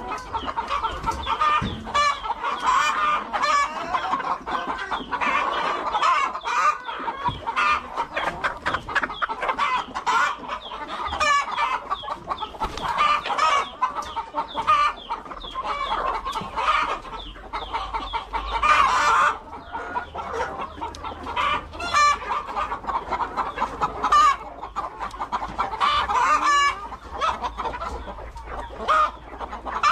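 A flock of chickens clucking, many short calls overlapping continuously, with a longer, louder call about two-thirds of the way through.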